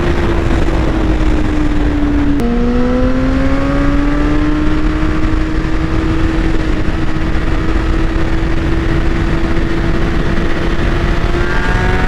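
Sport bike engine at high speed, heard onboard over wind noise. It shifts up about two and a half seconds in with a sharp click and an abrupt drop in pitch, then pulls again with a slowly rising note as the bike accelerates.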